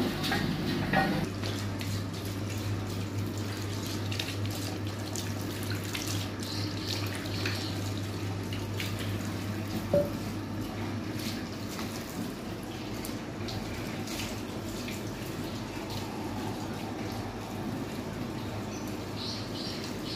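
Tap running into a ceramic bathroom washbasin while hands wash and rinse in the stream. A few sharp knocks sound over it, the loudest about halfway through, and a low steady hum underneath fades out a little after that.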